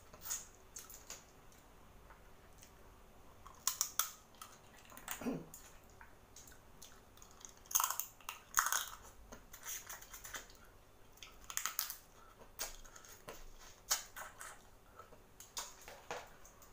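Close-up eating sounds of boiled seafood: sucking and chewing meat and juice from crab and shrimp shells, with wet lip smacks and mouth clicks coming at irregular moments.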